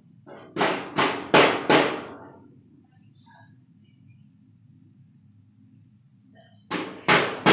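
A toddler's hands slapping the lid of a top-loading washing machine like a drum: four quick slaps about a second in, then another run of four near the end.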